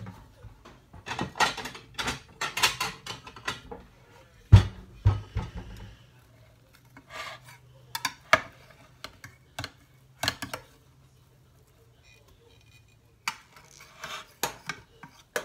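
Metal spatula scraping and clinking against a glass baking dish as cake squares are pried out and lifted onto a plate. There is a heavier knock about four and a half seconds in, then only scattered clicks.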